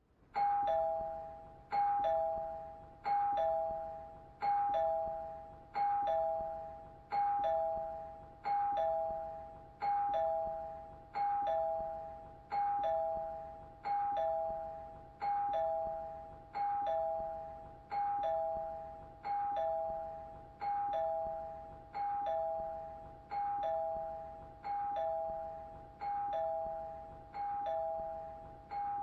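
Two-tone ding-dong doorbell chime, a higher note followed at once by a lower one. It repeats over and over, about every second and a half.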